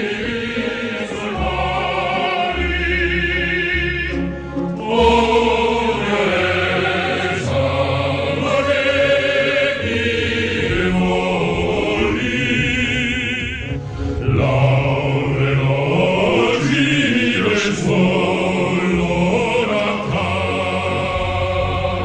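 Music with a choir singing, the voices wavering with vibrato.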